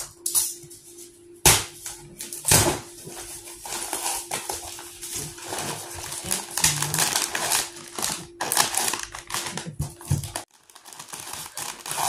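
Cardboard parcel being cut open and unpacked by hand: tape slit, flaps pulled back and plastic snack packets crinkling inside, with many sharp knocks and rustles. A faint steady hum underneath cuts off about ten and a half seconds in.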